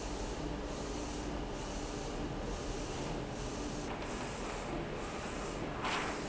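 DTF printer running, its print-head carriage sweeping back and forth in an even rhythm of about one pass a second over a steady machine hum.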